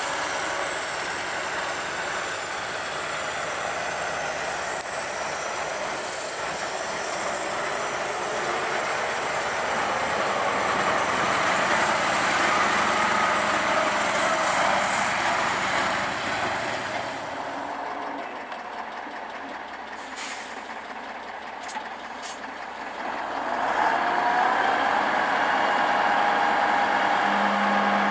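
KamAZ-55111 dump truck's V8 diesel running while it tips its body, with a steady mechanical whine over the engine. The noise eases off and a few sharp clicks come through, then the engine comes back louder near the end with a rising whine and a steady hum.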